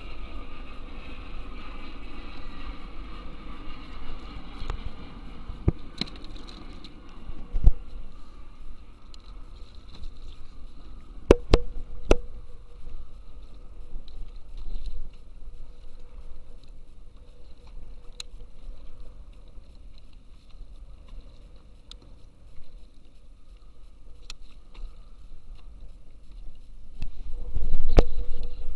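Water lapping against a fishing kayak's hull, over a steady low rumble. A few sharp knocks come through, two close together about a third of the way in and a louder one near the end.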